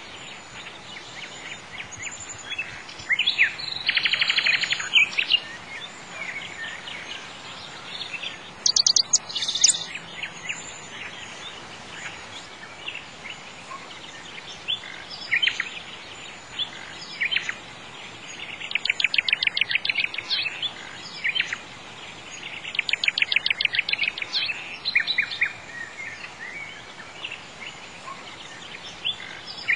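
Songbirds singing: scattered chirps and a few rapid trilled phrases over a steady background hiss.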